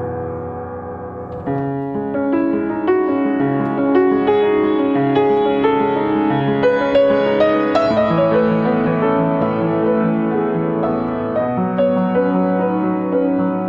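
Yamaha upright piano played solo: an improvised melody over sustained chords. The playing grows louder about a second and a half in, as a new phrase begins.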